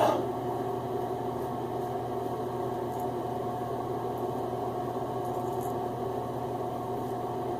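Steady mechanical hum with an even hiss, like a running fan or appliance, with a few very faint light scratches over it.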